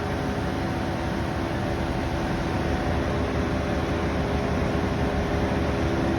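Electric air-suspension compressor running steadily, a hum over a constant rushing noise, as it pumps air for the ride-height system.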